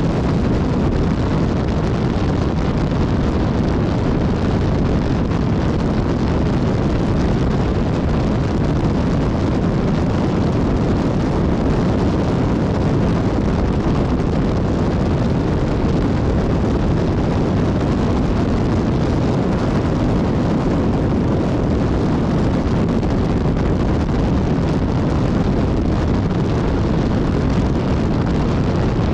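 Riding noise from a BMW S1000XR motorcycle's inline-four engine under steady wind rush on the microphone. The sound holds even and level throughout, with no revving or gear changes standing out.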